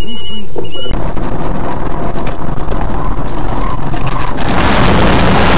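Road, wind and engine noise of a moving car, a dense steady rush that grows louder about four seconds in.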